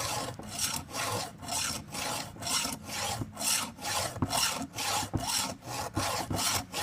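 Hand file drawn repeatedly across a chainsaw chain's cutter tooth, a rasping stroke about twice a second, sharpening the cutter at a 35-degree angle.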